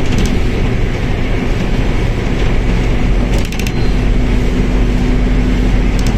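Mercedes-Benz OF1721L bus running on the road: a steady low drivetrain drone with a held hum, broken by short bursts of rattling clicks from the running gear, the loudest cluster about three and a half seconds in.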